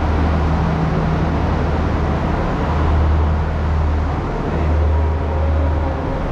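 Diesel engine idling with a steady low rumble and a deep hum that fades about four and a half seconds in.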